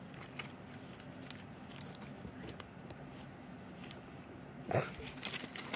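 Faint rustling of crumpled paper bedding and fur as pet rats are scratched and shift in a cardboard box, with scattered soft clicks and one short, louder rustle near the end.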